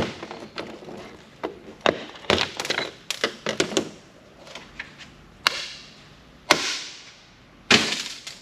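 Clatter of parts being handled and set down during electronics disassembly: a run of sharp knocks and clicks, the loudest two about six and a half and seven and a half seconds in.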